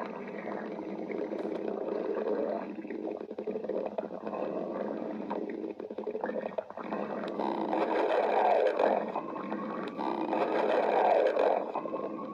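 Stomach growling: a long run of rumbling and gurgling from the gut, swelling louder twice in the second half, with a thin drawn-out whine rising slowly through it near the end.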